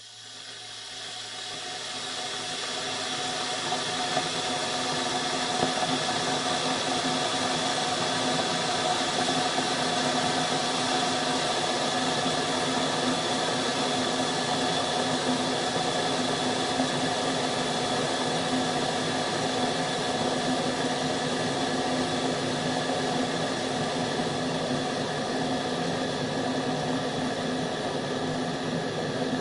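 Kettle boiling: a steady rushing rumble that swells over the first few seconds, then holds level.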